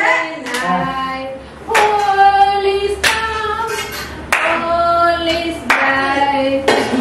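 A group of people singing together in long held notes, with hand claps keeping time about once every second and a bit.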